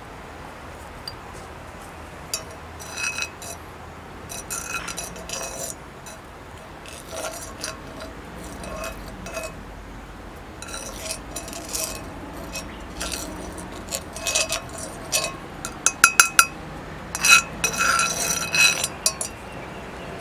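Utensils clinking against cookware in irregular clusters of sharp, ringing strikes that grow busier and louder near the end.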